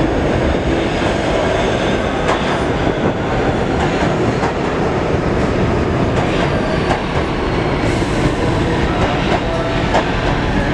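R46 subway train entering an underground station and running along the platform: a steady loud rumble, with wheels clacking over rail joints every second or two and a faint high squeal.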